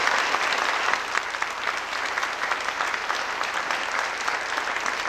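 A congregation applauding: many hands clapping together, loudest in the first second and then holding a little lower.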